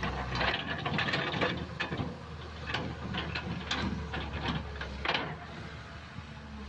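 Crawler excavator's diesel engine running steadily under a clatter of metallic clanks and rattles from the boom and bucket as the bucket digs into mud and heaped plant debris. The clanking is busiest in the first couple of seconds, with another burst about five seconds in.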